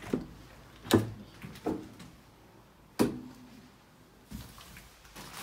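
A door with a metal lever handle being opened: a few sharp clicks and knocks of the latch and door, the loudest about a second in and again about three seconds in.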